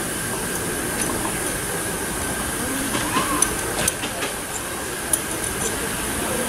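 Steady hiss from a miniature live-steam locomotive standing at rest, with light metallic clicks and clanks as it is worked on, most of them between three and four seconds in and one more just after five.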